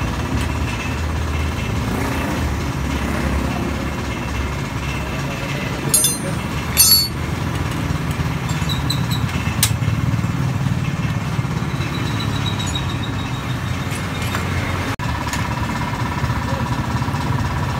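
A steady engine-like hum of machinery running in the workshop, with sharp metallic clinks of hand tools against the scooter's rear hub a few times, about six and seven seconds in.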